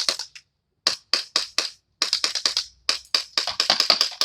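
CO2 airsoft pistol, a CZ P-09, firing semi-automatic as fast as the trigger is pulled: sharp pops at about four to six a second, in several quick strings broken by short pauses.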